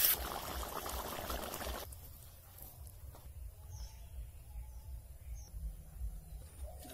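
A steady crackling hiss that cuts off abruptly about two seconds in, leaving only a faint low rumble.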